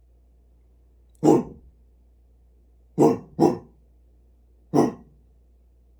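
A person making four short, rough throat sounds like coughs or throat-clears, trying them out as a noise to call a cat. One comes about a second in, a quick pair in the middle and one more near the end.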